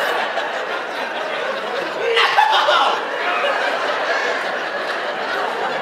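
Audience laughing, a steady spread of many people's laughter with a louder swell about two seconds in.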